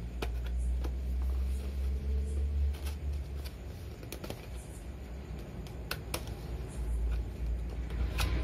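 Small cardboard product box being handled and opened by hand: scattered sharp clicks and light scrapes as the flap is worked loose, over a steady low hum.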